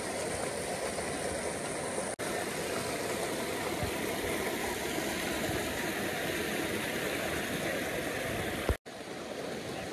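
Steady rush of a shallow mountain stream running over stones and boulders. The sound cuts out for an instant twice, about two seconds in and near the end.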